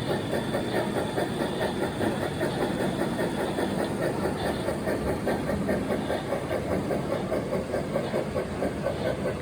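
Model steam locomotive's sound unit playing steady, rhythmic chuffing, about three to four chuffs a second.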